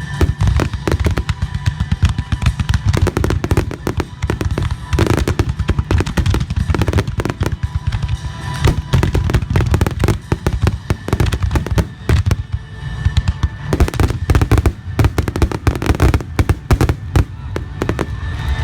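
Fireworks finale barrage: aerial shells bursting in rapid, continuous succession, many bangs and crackles overlapping with heavy low booms.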